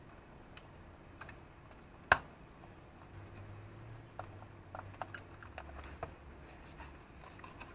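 Scattered light clicks and taps of hands handling wires and plastic battery holders in the underside compartment of a homemade breadboard station, with one sharp click about two seconds in, then soft knocks as the board is lifted and turned over.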